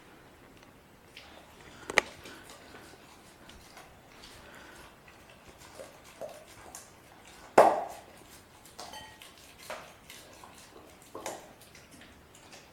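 German Shepherd puppy chewing a raw chicken quarter: irregular sharp cracks and clicks of teeth on bone, one loud crack about two seconds in and the loudest a little past halfway.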